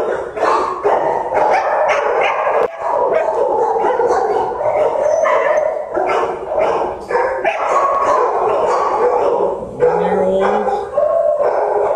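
Dogs barking nonstop in a shelter kennel block, the barks packed close and overlapping into a continuous din.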